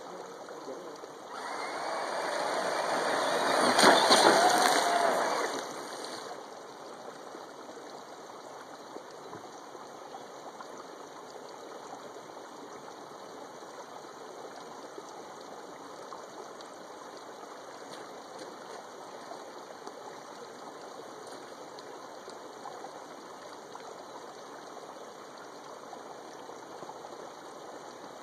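Creek water running steadily. About a second in, a radio-controlled monster truck drives through the water close by, splashing for about five seconds, loudest around four seconds in, with a faint motor whine.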